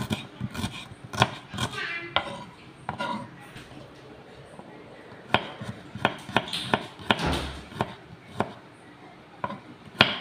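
Small kitchen knife slicing shallots and then garlic cloves on a wooden cutting board: irregular sharp knocks of the blade on the board, with a pause near the middle.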